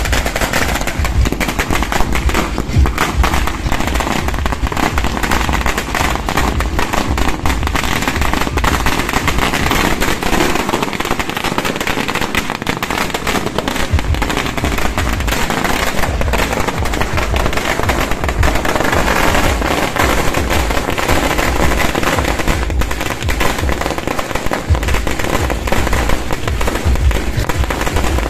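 Firecrackers popping in quick, continuous runs, with loud music playing underneath.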